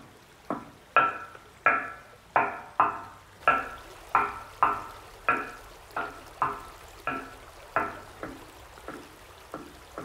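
Footsteps on an old steel-framed footbridge with wooden steps, about one and a half a second, each step ringing briefly through the structure.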